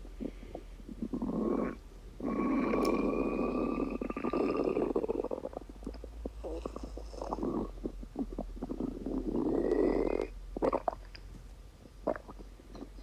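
Stomach rumbling: two long gurgling growls, about two seconds in and again in the second half, each with a faint, slowly rising squeak on top, and short gurgles and pops in between.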